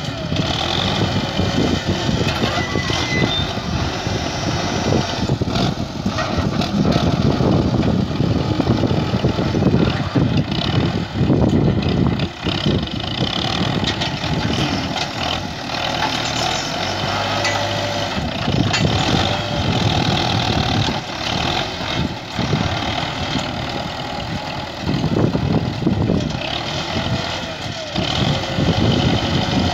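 Belarus tractor's diesel engine running continuously while it works a front-end loader digging earth, rising and falling in level.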